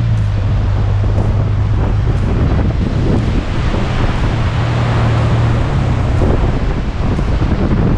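A 4WD's engine drones steadily under a loud rushing of wind and track noise while driving a bush track. There are a few faint ticks, and the engine note shifts slightly about three-quarters of the way in.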